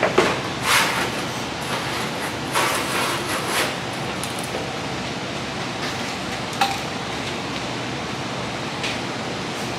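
A few light metallic knocks and clinks of sheet metal being handled and fitted, most of them in the first second, over a steady hiss.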